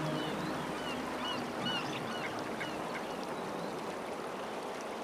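A flock of bar-headed geese calling, many short overlapping honks over a dense murmur of the flock.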